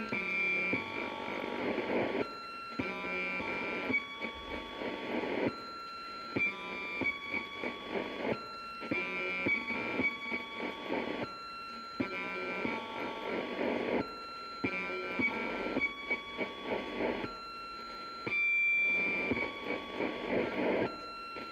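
Electronic sound effects from a hand spinner, played through a small speaker as clips of one to three seconds with short breaks between; steady tones over a rattling noise, with no bass.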